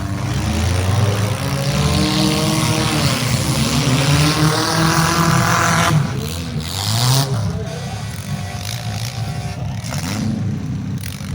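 Demolition derby cars' engines revving and running loudly, their pitch rising and falling. The level drops suddenly about six seconds in and stays lower afterwards.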